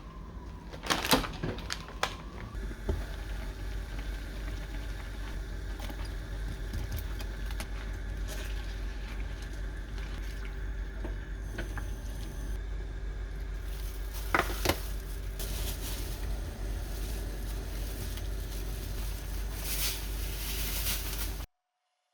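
Kitchen cooking sounds: a pot of stew simmering on the stove under a steady hum, with a few sharp clinks of a utensil about a second in and again near the middle. It cuts off abruptly near the end.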